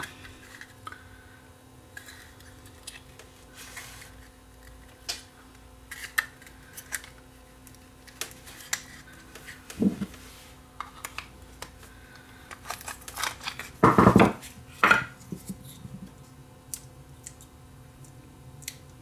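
Plastic clicks, scrapes and knocks as a wall-adapter power supply's case is pried apart and its circuit board is pulled out by hand, with a louder bout of handling about three-quarters of the way through.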